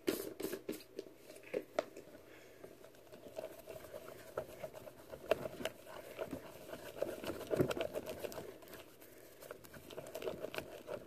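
A wooden stirrer mixing thick, foamy slime in a glass bowl, with soft irregular squishes, clicks and scrapes as cornstarch is worked into the glue, soap and shaving cream mixture.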